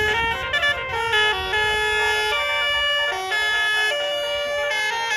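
Bus basuri telolet horn playing a melody: a rapid run of steady, pitched notes stepping up and down.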